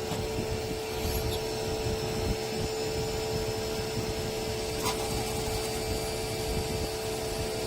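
Cam-type automatic lathe running: a steady motor whine over low mechanical rumble, with a single sharp click near the middle.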